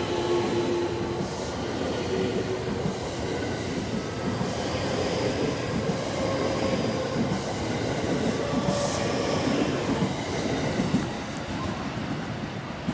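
Electric multiple-unit train pulling out and accelerating past, its traction motors giving a whine that steps up in pitch over a steady rumble and clatter of wheels on rails. The sound eases a little near the end as the train draws away.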